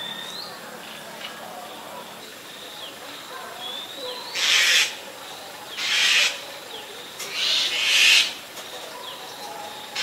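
Asian barred owlet giving harsh, hissing calls: four of them, starting a little before halfway in, roughly a second and a half apart, the third drawn out longer. A thin rising whistle comes shortly before the first.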